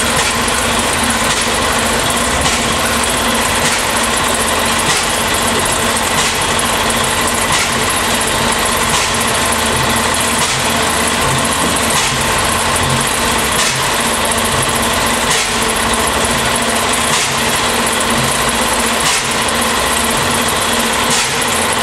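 Large vintage stationary air compressor with a big flywheel running steadily: a fast, dense mechanical clatter, with a sharp tick recurring roughly once a second.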